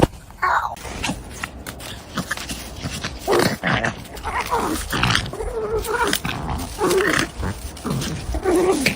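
A dog making a string of short vocal sounds, some with a bending pitch, repeated every second or so through the second half.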